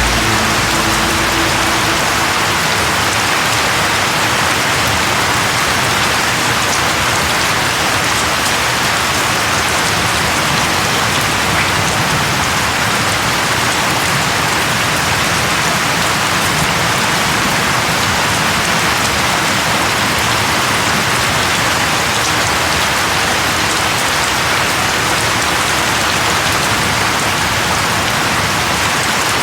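Steady, heavy rainfall, an even hiss of rain striking surfaces with no change in intensity.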